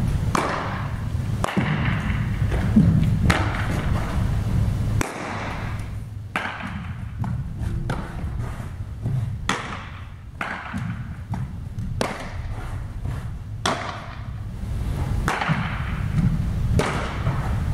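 Baseball infield practice: sharp cracks and pops of a baseball being hit and caught in leather gloves, over and over, echoing in a large indoor turf facility over a steady low hum.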